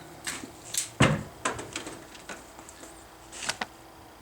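Handling clatter: a series of irregular clicks and knocks as tools and parts are set down and picked up, the loudest knock about a second in.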